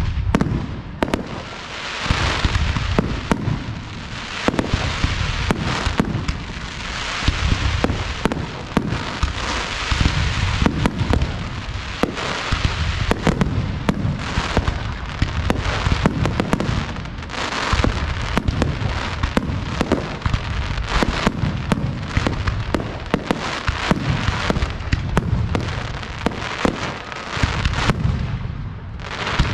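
Professional fireworks display: a dense barrage of sharp bangs, several a second, over continuous crackling.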